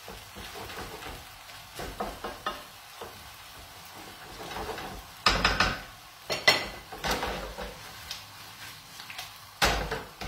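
Spaghetti cooking directly in tomato sauce in an aluminium frying pan, sizzling steadily as it is stirred, with a utensil scraping and knocking against the pan several times, loudest about five seconds in, again at six and a half, and near the end.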